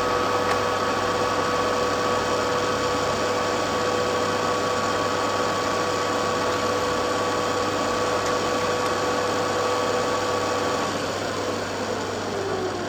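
Trens SN50C engine lathe running with a steady gear whine over machine noise; near the end the whine falls in pitch and the sound eases as the machine slows down.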